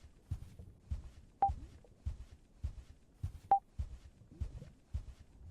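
Short electronic beeps at a single pitch, about two seconds apart, over soft, irregular low thumps.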